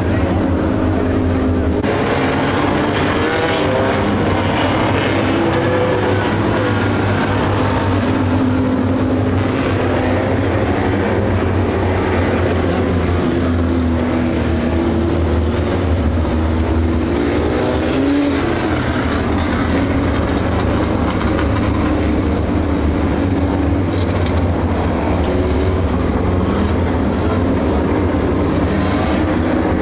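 A field of compact dirt-track race cars with their engines running, several overlapping engine notes rising and falling as the cars rev and pass.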